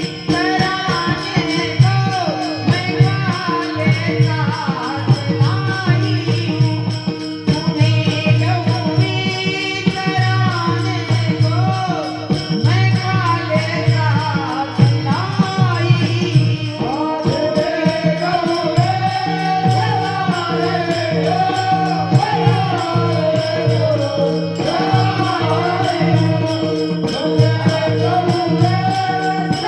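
Devotional bhajan music: a melody bends up and down over a steady low drone, with jingling hand percussion and drum strokes keeping the beat.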